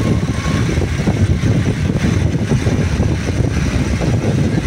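Motor vehicle in motion: a steady, continuous low rumble of engine and road noise.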